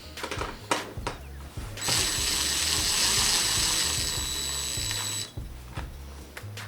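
A small power tool runs steadily for about three and a half seconds with a high whine, after a few handling clicks. Background music with a steady bass beat plays underneath.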